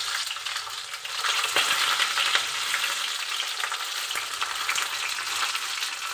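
Hot mustard oil sizzling in a steel kadhai as stuffed capsicums are set into it one by one to shallow-fry, a steady hiss with scattered small crackles.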